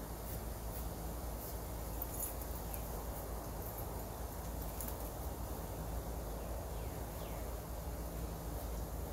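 Steady low hum and hiss of outdoor background, with a few faint short bird chirps and light scattered ticks of a paintbrush dabbing on the canvas.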